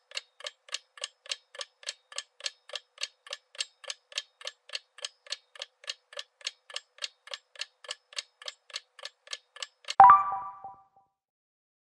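Countdown-timer sound effect: clock-like ticking, about three to four ticks a second, then about ten seconds in a single ringing ding that fades over a second, marking time up and the answer reveal.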